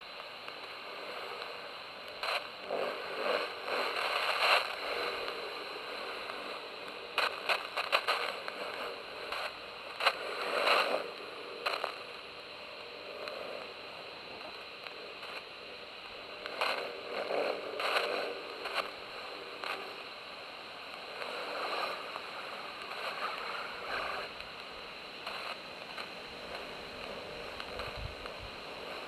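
Shortwave AM reception from an Icom IC-R20 handheld receiver's speaker: a steady band of jamming noise over a Cuban numbers station's frequency. Louder surges come and go every few seconds.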